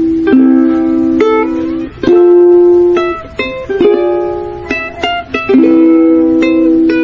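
Background music: a light instrumental tune in short phrases of held notes.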